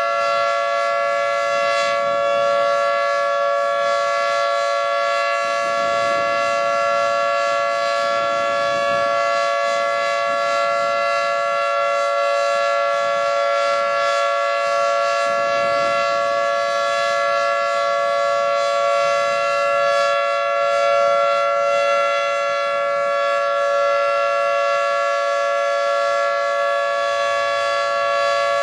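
Federal Signal 2T22 dual-tone outdoor warning siren sounding a steady alert tone for its test: two tones held together at one pitch, loud and even, with no rise or fall.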